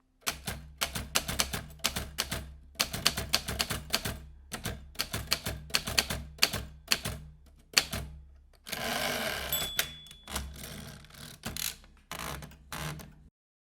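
Vintage manual typewriter being typed on: runs of sharp key clacks with short pauses between. About nine seconds in comes a longer rasping stretch with a brief bell ding, typical of the carriage being returned at the end of a line. A few more keystrokes follow, then the typing stops.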